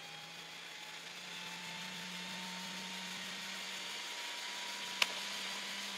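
Electronic whine from the RC car's electronic speed controller and motor, slowly rising in pitch and growing louder over a low hum. A single sharp click comes about five seconds in.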